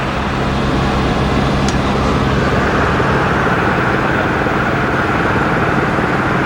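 Helicopter engine and rotor noise, steady and loud, with a constant low hum.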